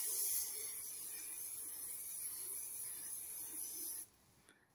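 Aerosol can of art fixative spraying in one continuous steady hiss, which stops about four seconds in.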